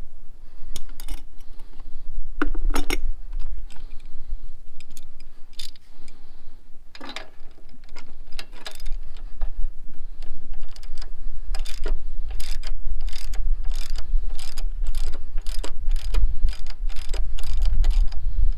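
Ratchet wrench clicking in short runs as a spark plug is turned into the mower's engine, the clicks sparse at first and coming quick and thick in the second half.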